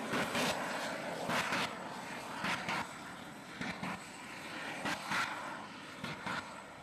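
Small jet engine on a jet-powered portable toilet running as a steady rushing roar with short louder surges, fading steadily as the vehicle moves away.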